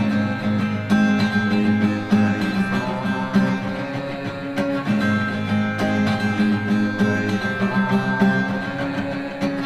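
Lo-fi bedroom-pop music led by acoustic guitar, its chords ringing on steadily.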